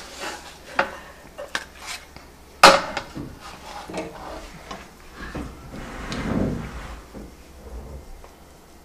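Dishes and a serving spoon clinking and knocking: scattered clicks with one sharp knock about two and a half seconds in, then a spoon scraping through thick sausage gravy in a skillet as it is ladled onto a plate.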